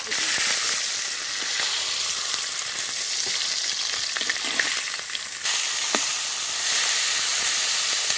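A fish head sizzling as it fries in hot oil in a metal kadai, with a few clicks and scrapes of a metal spatula turning it.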